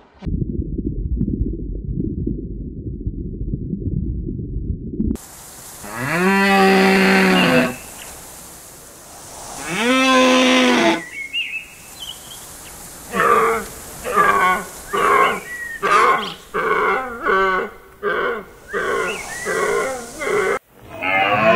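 A low, muffled rumble for about five seconds, then a herd of deer calling: two long lowing calls a few seconds apart, followed by a quick run of shorter calls.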